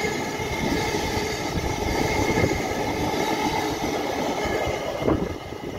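Greater Anglia electric multiple unit running past along the platform: a steady rush of wheels on rail with a faint steady hum, easing off near the end as the last carriages go by.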